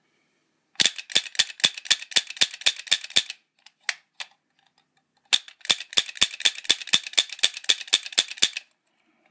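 Daisy toy six-shooter revolver dry-firing in quick succession: its hammer, driven by rubber bands looped from the trigger, snaps down again and again in sharp clicks about six a second. Two bursts of some fifteen clicks each, with a single click between them, show the repaired action working.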